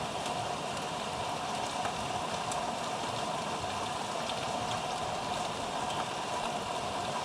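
Steady outdoor background noise, a constant hiss and hum with no breaks, with a few faint short high chirps scattered through it.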